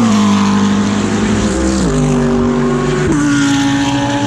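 GT3 race car engine heard onboard under load, its pitch stepping abruptly at quick sequential gear changes about a second in and again near the three-second mark.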